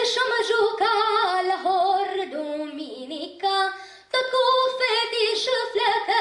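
A young girl singing a Romanian folk song solo and unaccompanied, in long held notes that waver and turn, with a short break for breath about four seconds in.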